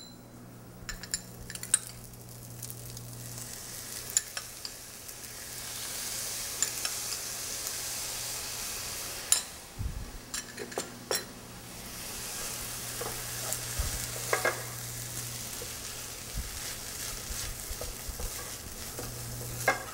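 Fried rice sizzling in a hot sauté pan, freshly seasoned with a soy-sauce-and-dashi mix. The hiss thickens a few seconds in, with scattered knocks of a wooden spatula against the pan and stirring near the end.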